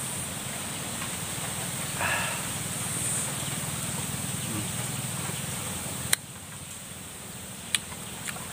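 Close-up eating sounds of a person biting into and chewing a slice of green lime dipped in chili salt: a wet slurp about two seconds in, then sharp mouth clicks and smacks near the end. Under it runs a steady low hum that cuts off with a click about six seconds in.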